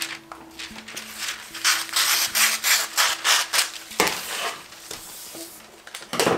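A sheet of wax paper rustling and crinkling as it is handled, in a rapid run of crisp rustles through the middle. There are louder, sharper crackles about four seconds in and again near the end.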